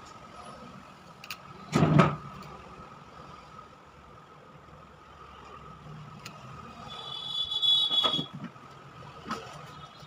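Handling noise of a small phone circuit board on a workbench: a loud knock about two seconds in and a few light clicks. A high wavering squeal rises and fades around seven to eight seconds in, over a faint steady hum.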